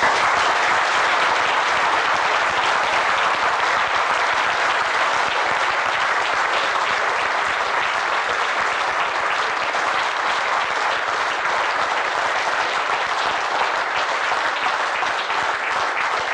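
A large audience of children and adults applauding, the clapping starting abruptly and continuing steadily, easing a little near the end.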